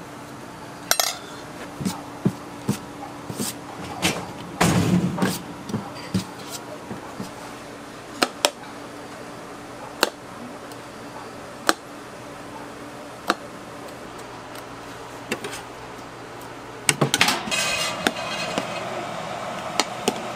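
Kitchenware clinking and knocking: scattered sharp taps and clinks, with a busier clatter about five seconds in and again near the end, over a faint steady hum.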